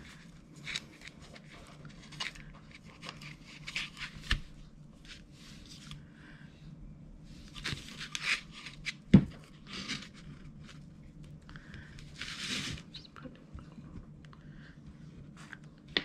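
Jute twine being wound and pulled taut around a small wooden block by hand: scattered rustling and scraping of the twine against the wood. There is a single sharp knock about nine seconds in, and a longer rustle a few seconds later.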